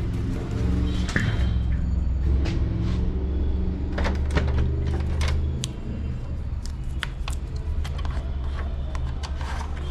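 Inkjet printer mechanism of a Brother MFC-J3720 running: a steady low motor hum with many sharp clicks and knocks scattered through it.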